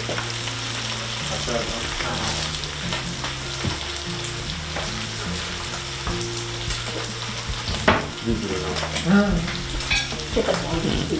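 Anchovies frying in olive oil in a pan, sizzling steadily just after white wine vinegar has gone in near the end of cooking. There is a single sharp clink about eight seconds in.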